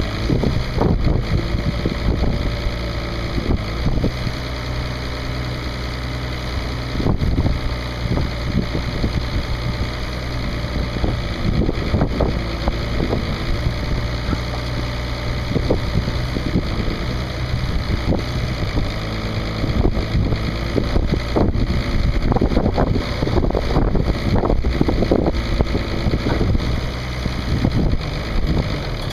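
International 3600 loader backhoe's D282 diesel engine running steadily, with scattered knocks and clunks over it, thickest in the second half.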